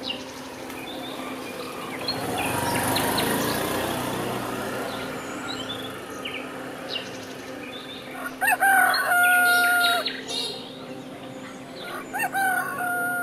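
A rooster crowing twice, each crow rising at the start and ending in one long held note, the second running on past the end. Small birds chirp briefly here and there.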